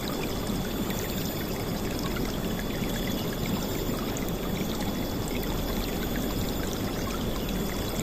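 River water flowing and splashing steadily, an even rushing sound with no let-up.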